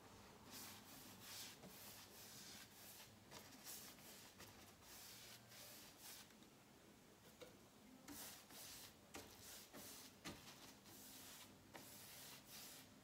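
Faint, irregular swishes of a 1½-inch paintbrush stroking oil-based paint onto a painted wooden panel, the bristles rubbing over the surface stroke after stroke.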